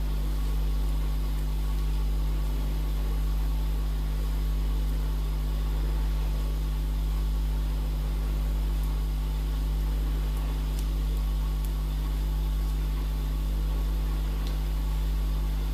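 Steady low hum with a few faint ticks late on.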